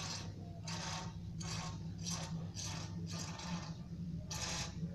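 Aerosol can of carburettor cleaner sprayed in repeated short hissing bursts, a bit more than one a second, into the fuel nozzle of a Swingfog SN50 thermal fogger to flush out a blockage of diesel residue. A steady low hum runs underneath.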